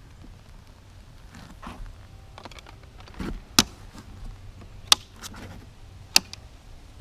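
Three sharp clicks, evenly spaced about a second and a quarter apart, over soft rustling handling noise.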